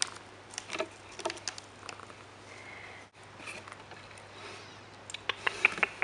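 Calico cat purring close to the microphone, with scattered light clicks and taps and a quick run of sharper clicks near the end.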